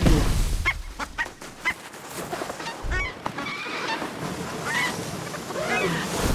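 Short honking squawks from cartoon animal characters, several times over. A run of quick clicks comes in the first two seconds.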